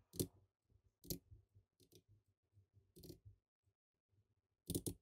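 Computer keyboard and mouse clicks as numbers are typed into spreadsheet cells: a handful of sharp, separate clicks about a second apart, the last one doubled.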